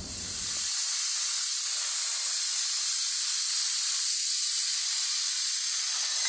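CNC plasma cutter cutting sheet metal: a loud, steady hiss that builds up over the first second and then holds level.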